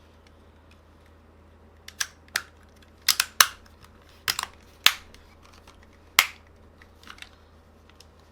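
Plastic parts of a PS5 DualSense controller being pressed together, clicking and snapping into place: about a dozen sharp clicks, the loudest a few sharp snaps between about three and six seconds in.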